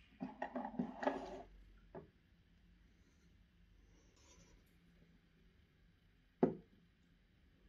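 Handling noise from a CPU tower cooler being picked up and turned in the hands over a table: a quick run of clicks and rustles in the first second and a half, a small knock at about two seconds, and one sharp knock about six and a half seconds in.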